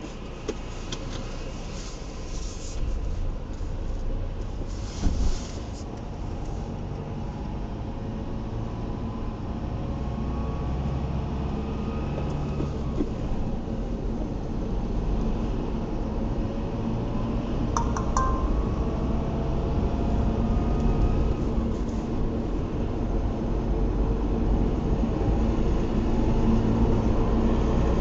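Subaru engine running hot, carrying the timing-chain noise its owner is pointing out. The sound is steady and grows gradually louder.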